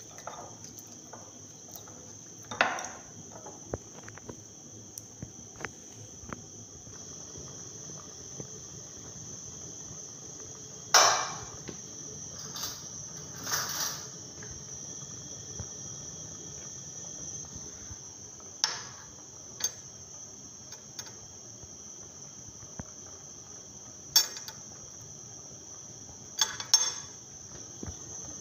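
Steady high-pitched trill of crickets, with a few sharp clatters of a metal pot and spoon at intervals, the loudest about eleven seconds in.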